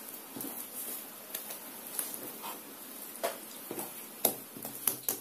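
Hands pinching shut a soft yeast-dough pie and lifting it off a silicone baking mat: soft handling noises with scattered light taps and clicks, the sharpest about four seconds in.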